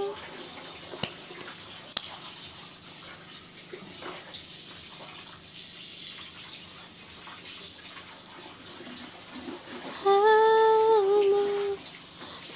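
A pause filled with a steady hiss and two sharp clicks about a second apart, then a woman's voice singing one long held note with a slight waver near the end.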